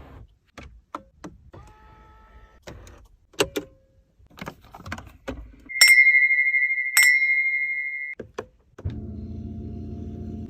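New car's controls being worked: a series of clicks and clunks, then two loud high electronic beeps about a second apart midway. Near the end a small electric motor starts and runs steadily, as from a power window.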